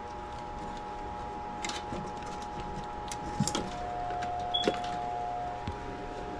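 A steady whine made of several pitches, with a few light clicks and rustles as wire leads are handled.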